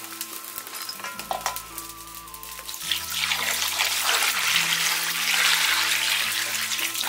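A stream of water poured into an enamel bowl of raw lamb rib pieces, splashing over the meat. It starts about three seconds in and is the loudest sound, over background music.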